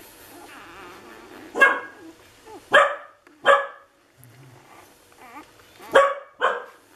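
Six-day-old Lagotto Romagnolo puppies squealing: five short, loud yelps, three in the first half and two near the end, with faint wavering whimpers between.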